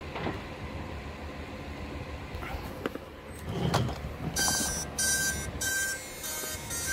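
FPV quadcopter beeping with its battery connected: short beeps on one high tone with a buzzy edge, repeating on and off about twice a second, starting a little past the middle after some handling knocks. The owner puts the fault down to either the ESC or the flight controller.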